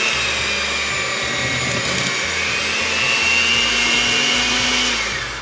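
Hamilton Beach electric hand mixer running steadily with a high whine, its beaters churning thick peanut butter cookie dough, then winding down near the end.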